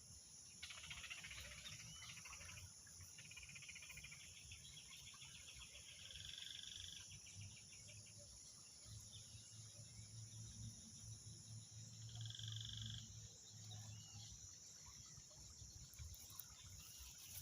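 Faint frogs calling in rapid pulsed trills and short notes over a steady high-pitched chorus of crickets or other insects.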